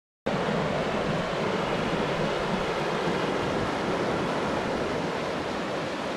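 Steady rushing of river water, an even noise without distinct tones, cutting in abruptly just after the start.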